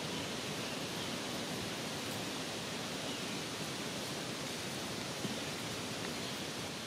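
Steady, even outdoor background hiss, with a single faint tick about five seconds in.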